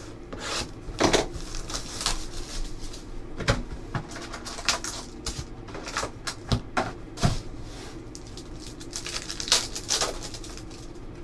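Foil trading-card pack wrappers crinkling and rustling as packs are handled, with scattered clicks and a few sharp knocks of cards and card boxes on the table.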